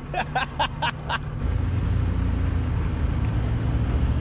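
A pickup truck's engine pulling hard up a rocky off-road climb: a steady low rumble that comes in strongly about a second and a half in. Before it, a person gives five quick short voice bursts.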